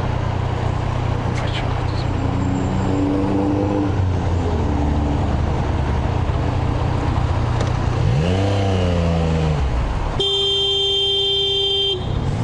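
Motorcycle engine running steadily in traffic, with a short rise and fall in pitch about eight seconds in. Near the end a loud, steady horn-like toot lasts about two seconds and cuts off sharply.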